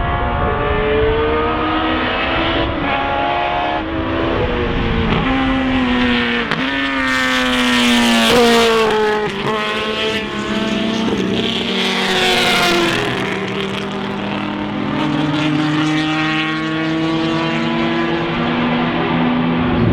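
Historic racing cars passing at speed, their engine notes rising through the gears and dropping on each shift, with several cars audible at once. The loudest passes sweep by about eight and twelve seconds in.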